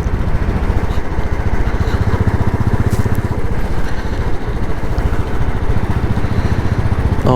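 Motorcycle engine running steadily underway, a fast, even stream of low exhaust pulses with a rushing noise over it.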